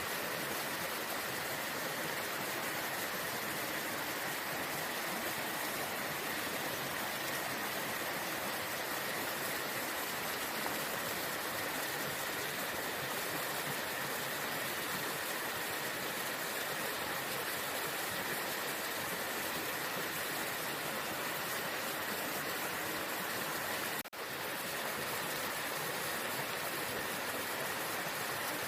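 Waterfall rushing with a steady, even roar of falling water. The sound drops out briefly once about 24 seconds in.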